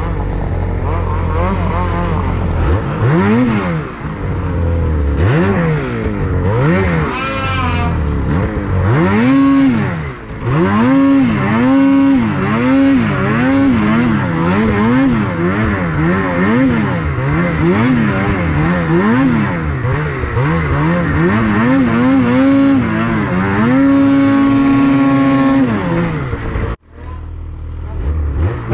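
Snowmobile engine revved up and down again and again, about once a second, as the throttle is worked; near the end it holds high revs, then the sound cuts off suddenly for about a second before the engine is heard again.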